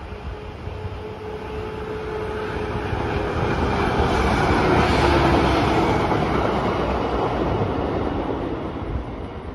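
Stadler GTW diesel railcar passing by on the rails, its engine and wheels growing louder to a peak about five seconds in and then fading as it moves away. A faint humming tone drops slightly in pitch as it goes past.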